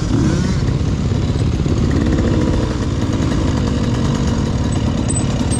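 Motocross dirt bike engine running steadily under throttle, heard close up from on board the bike.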